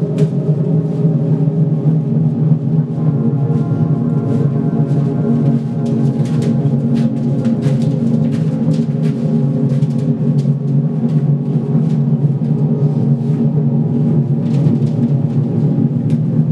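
Music: a dense, steady low drone of many held tones, with scattered clicks and taps over it.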